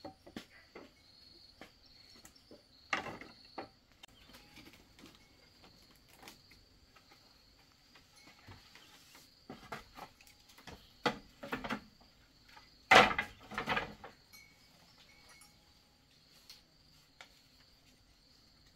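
Insects chirring steadily on one high note, with scattered wooden knocks and clatters from building work; the loudest, a quick cluster of sharp knocks, comes about two-thirds of the way through.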